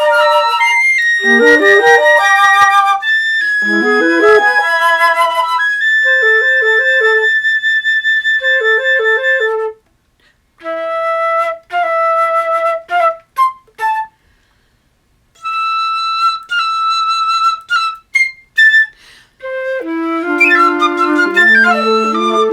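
Flutes playing chamber music: piccolo, flute and alto flute in fast descending runs and quick repeated staccato figures in the manner of birdsong. Two short breaks come about ten and fourteen seconds in, and lower sustained notes join near the end.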